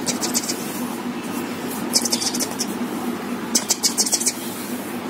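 A hand rubbing and shaking a child's back through his shirt, giving scratchy rustles in three short bursts over a steady low hum.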